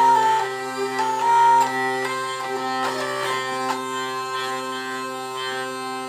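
A folk drone instrument playing a melody over steady held drones, the low drone notes sounding unbroken beneath the changing tune.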